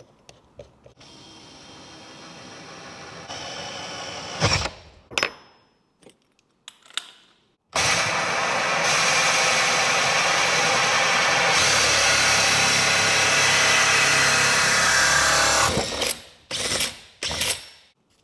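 Cordless drill driving a fine-tooth Mandrex hole saw through MDF: a loud, steady cutting noise for about eight seconds that stops suddenly. Before it come clicks, a quieter whir and two sharp knocks as the saw is fitted to the drill. After it come a few knocks as the cut-out plug is handled.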